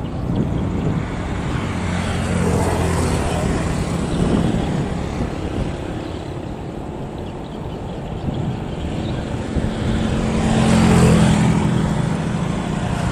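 Steady low drone of motorboat and barge engines running on the river. It swells twice, rising and fading about two and a half seconds in and again near eleven seconds, as something passes close by.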